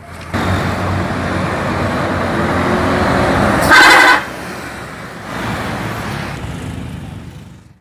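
Tour bus going past close by, its engine and tyre noise rising suddenly and running loud, with one short horn blast about four seconds in. A second swell of passing-vehicle noise follows and fades away near the end.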